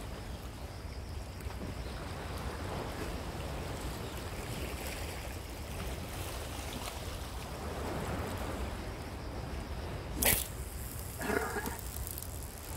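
Steady wind and wave noise on a rocky seashore. About ten seconds in comes a single sharp click, a spinning reel's bail snapping shut after the cast, and a short rattle follows a second later.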